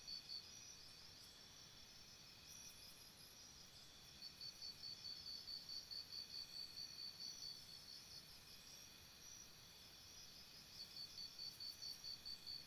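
Crickets chirping: one cricket's high-pitched chirps at about four a second, in runs that stop around the start, resume about four seconds in, pause again and return near the end. Under them runs a steady high trill of other insects.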